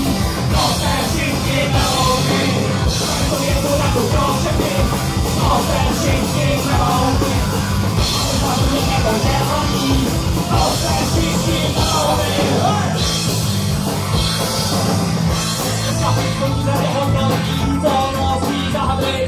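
Live rock band playing, with accordion, guitar and drum kit, and a vocalist singing at the microphone.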